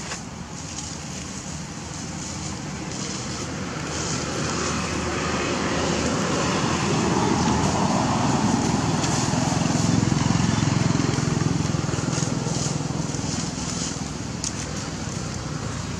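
A motor vehicle passing by: its low engine and road noise swells to a peak about ten seconds in, then fades.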